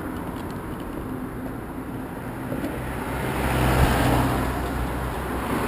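A van drives past close by, its engine and tyre noise swelling to a peak about four seconds in and then easing off, over steady road and wind noise.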